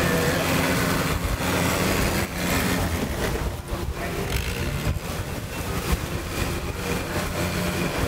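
A motor or engine running steadily with a low hum.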